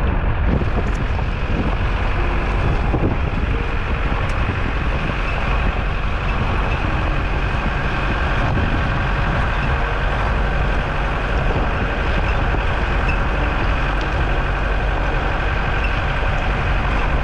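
Vehicle driving along a dirt track, heard from a camera on its bonnet: a steady engine and road rumble.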